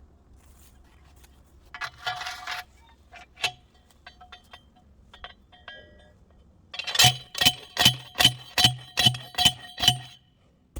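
Steel T-post being driven into the ground with a manual post driver: about eight ringing metal-on-metal clangs at roughly two and a half strikes a second in the last few seconds, after a short metallic rattle and a single knock earlier on.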